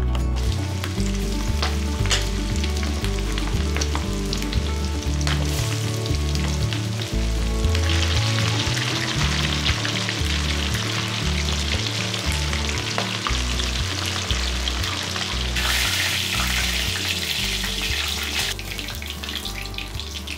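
Chicken pieces for karaage frying in a pan of hot oil: a steady sizzle that sets in about a third of the way through, grows louder for a few seconds near the end, then stops. Soft background music with a steady bass line plays throughout.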